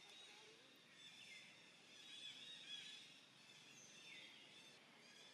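Faint outdoor ambience with repeated high-pitched chirping animal calls, a few of them sliding down in pitch.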